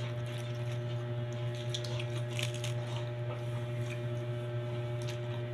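A steady low electrical hum, with faint crunching and crackling from raw cabbage leaves being torn and chewed, most of it around the middle.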